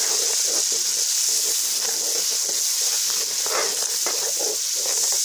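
Puréed tomatoes sizzling in hot ghee with fried onions and spices: a loud, steady hiss. A metal slotted spoon stirs through it.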